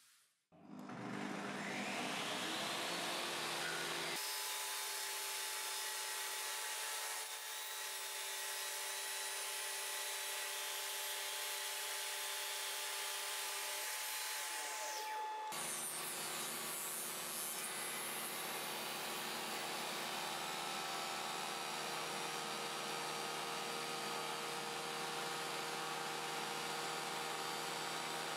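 Table saw with a dado blade starting up with a rising whine, then running steadily as the spinning blade is raised through a melamine-faced MDF zero-clearance insert to cut its own slot. The sound changes abruptly twice.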